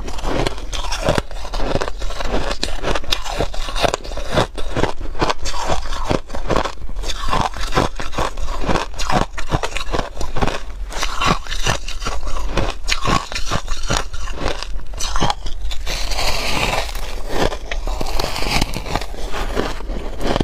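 Hard ice being bitten and chewed close to the microphone: a dense, continuous run of sharp crunches and cracks.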